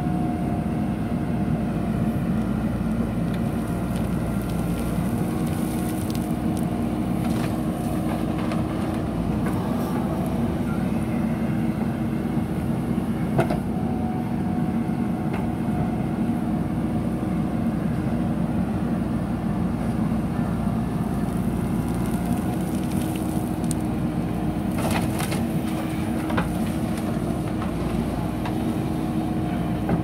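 JCB 3DX backhoe loader's diesel engine running steadily under load while the backhoe digs sand. A few sharp knocks from the bucket and arm come about halfway through and again near the end.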